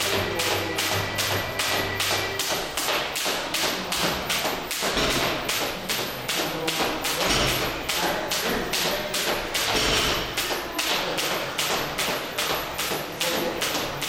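Skipping rope slapping the floor in a steady rhythm of nearly three strikes a second, with the jumper's feet landing in time on each turn.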